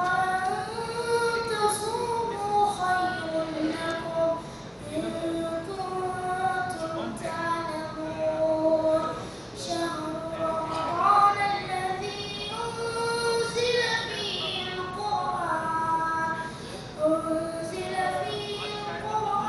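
A boy's voice chanting solo into a microphone in long melodic phrases, with notes held and ornamented by slides between pitches, and brief breaks for breath between phrases.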